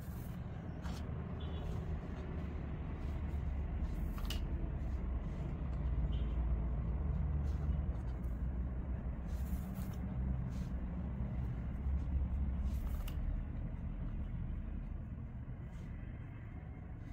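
Steady low background rumble that swells in the middle and eases off toward the end, with a few faint scattered clicks from cotton macrame cord being handled and knotted.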